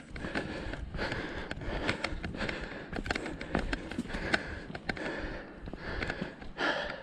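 A hiker breathing hard while walking, with many irregular footstep scuffs and clicks on the trail.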